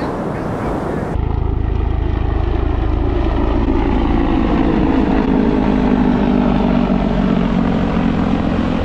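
A low-flying propeller aircraft or helicopter passing over, its engine drone steady and loud, the pitch bending slowly as it goes by.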